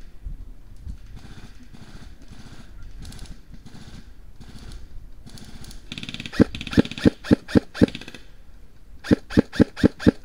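Airsoft rifle firing quick single shots, about four a second: a string of six about six seconds in, and another string starting near the end. Before the shots there is only a low rustle.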